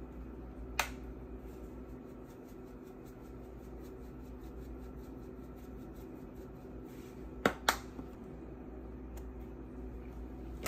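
A seasoning shaker is shaken over a bowl of chicken wings, giving a rapid run of faint taps. There is a sharp click about a second in and two more close together near the end, over a steady low hum.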